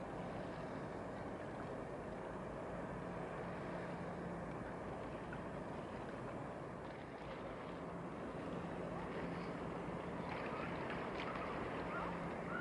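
Steady outdoor waterside noise of wind and water, with a faint low engine hum from a ship that comes and goes.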